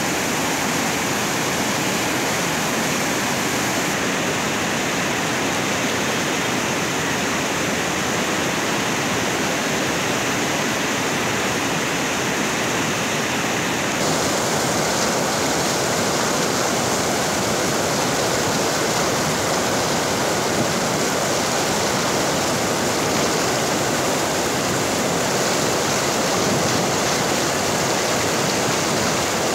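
Godavari river in flood: swollen floodwater rushing as a loud, steady wash of water. Its tone shifts slightly at cuts about four and fourteen seconds in.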